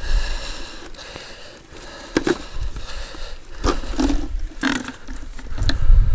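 Gear being handled: scraping and rustling with a few sharp knocks, as the catch is got out to be shown.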